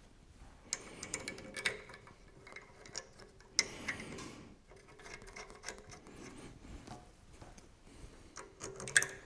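A planetary gearbox being handled and fitted onto an aluminium mounting plate: scattered metallic clicks and clinks, a short scrape about three and a half seconds in, and the sharpest clack near the end.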